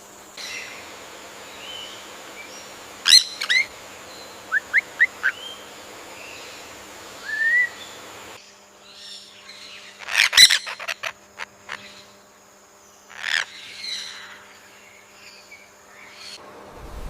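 Birds calling over a faint steady background: a loud call about three seconds in, then four short rising chirps, another loud call around ten seconds followed by a few quick clicks, and a last call a few seconds later.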